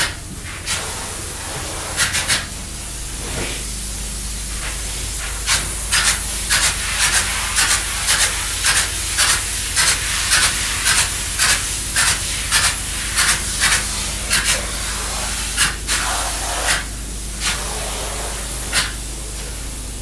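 Spray foam insulation gun hissing as foam is sprayed onto the timber studding of a narrowboat hull, over a steady low hum. In the middle it fires in short bursts, about two a second.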